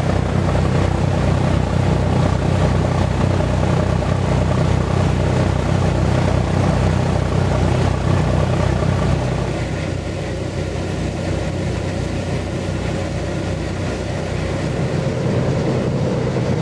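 Excursion boat's engine running steadily under way: a low, pulsing hum mixed with the rush of water. About two thirds in the sound turns a little softer and thinner.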